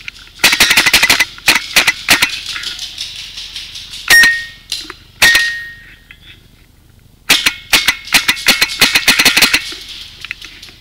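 Paintball marker firing two rapid volleys of shots, with two single louder cracks that ring briefly in between.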